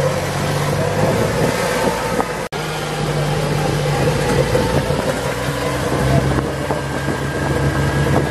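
Golf cart driving along, a steady motor hum with noise from the ride. The sound cuts out for an instant about two and a half seconds in.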